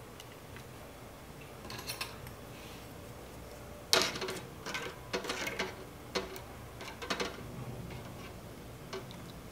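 A small metal ladle clinking and knocking against a miniature aluminium saucepan as it dips into the water. There is a sharp knock about four seconds in, then several lighter clinks in short clusters.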